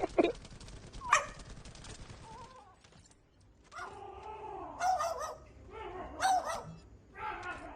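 A dog vocalizing: a short rising yip about a second in, then a run of wavering whines and yelps in the second half.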